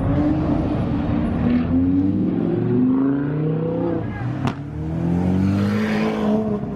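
High-performance car engines revving and driving by, their pitch rising and falling as they accelerate and ease off, with one sharp snap about four and a half seconds in.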